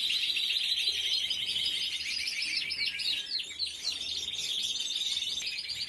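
Caged canaries singing: a continuous run of fast, rapidly repeated trills.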